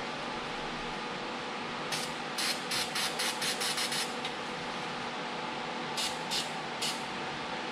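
Aerosol spray lubricant squirted in short hissing bursts, used to lubricate an exhaust hanger so the tailpipe can be pushed into it. There is a quick run of bursts about two seconds in, then three single squirts near the end, over a steady background hum.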